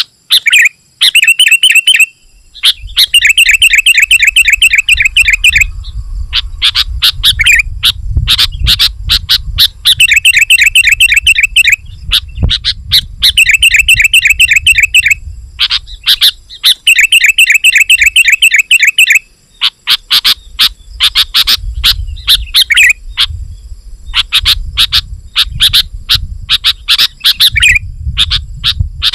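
Sooty-headed bulbul (kutilang) calling loudly and continuously. Runs of rapid chattering notes, each about two to three seconds long, alternate with sharp single chirps. A low rumble sits underneath through much of it.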